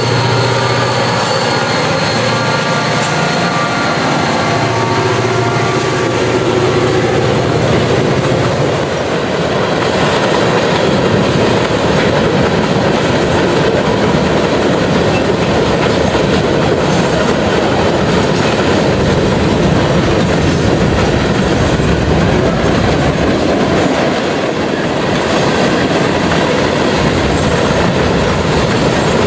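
CSX freight train passing close by: the diesel locomotives' engines drone for the first several seconds, then a long string of open-top hopper cars rolls past with steady wheel clatter and rumble.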